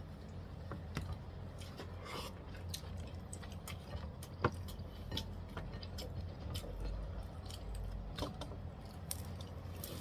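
Eating sounds at a meal: scattered light clicks and taps of cutlery and dishes, with one sharper click about halfway through.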